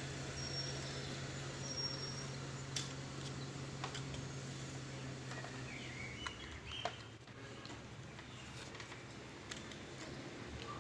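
Faint handling noise: a few scattered light clicks and taps over a low steady hum that stops about six seconds in.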